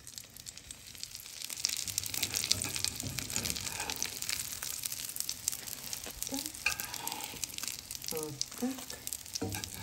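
Breaded sausage-and-cheese cutlets sizzling and crackling in a frying pan; the frying builds up over about the first second and then holds steady.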